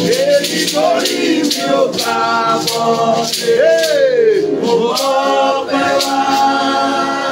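A man singing in long rising and falling glides of worship song, with a beaded hand shaker rattling in a regular beat.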